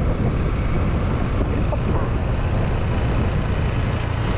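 Yamaha Aerox 155 scooter's single-cylinder engine running steadily while riding, with wind rushing over the bike-mounted microphone as a steady low rumble.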